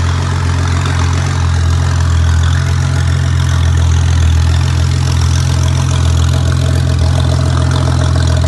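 Porsche 993 Turbo's twin-turbo air-cooled flat-six idling steadily through a hand-built Brooke Inconel 625 turbo-back crossover exhaust with high-flow catalytic converters.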